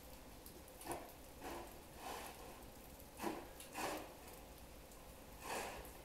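Six soft, short breaths close to the microphone, as from a person breathing through the nose, spaced unevenly over a faint steady background.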